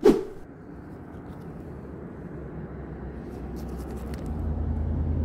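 A sharp knock, then a vehicle going by on the road, its rumble swelling slowly over several seconds and loudest near the end.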